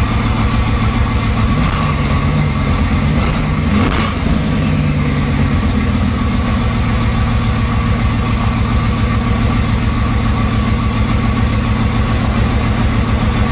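Bugatti Veyron's quad-turbocharged W16 engine idling steadily.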